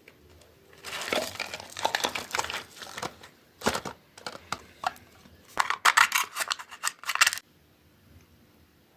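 Packaging being torn open and crinkled by hand in bursts: a run of tearing and rustling for about two seconds, a lone snap, then a louder flurry of tearing that stops abruptly.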